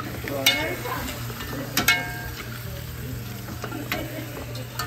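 Metal spoon scraping and clinking against an aluminium cooking pot as seasoning is spooned over fish. Two sharp ringing clinks come about half a second and two seconds in, over a steady low hum.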